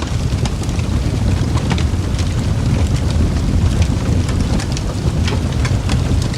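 Wood fire crackling: irregular small pops and snaps over a steady low rumble of burning.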